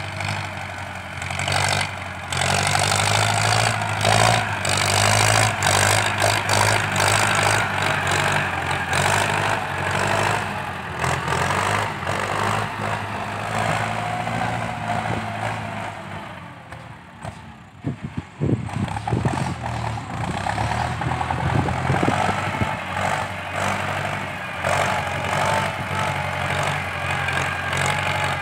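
Ford 6640 tractor's diesel engine working hard under load as it pushes soil with its front blade, a deep steady chug. It fades for a few seconds past the middle, with a few sharp knocks, then comes back up to full strength.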